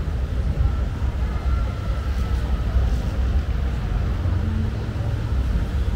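Street noise: a steady low rumble of vehicle traffic and engines, with no single event standing out.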